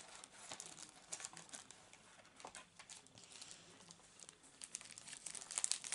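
Faint crinkling of gift packaging being unwrapped by hand: scattered crackles that get busier near the end.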